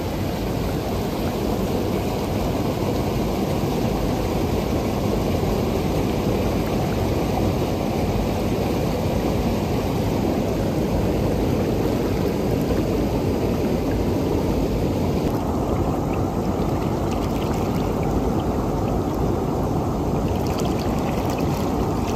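Stream water rushing steadily, an even unbroken noise. Near two-thirds of the way through, the higher hiss fades and the lower rush carries on.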